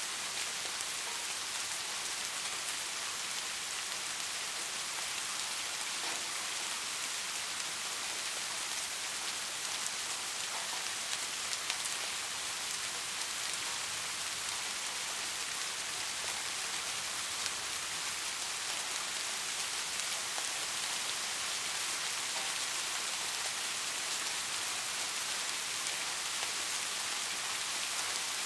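Steady rain falling: an even hiss, strongest in the high range, with faint scattered drop ticks.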